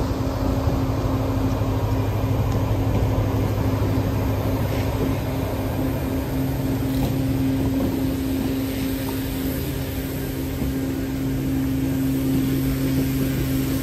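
ER20 diesel-electric locomotive engine running with a steady drone, a humming tone over a lower throb that shifts slightly in pitch about six seconds in.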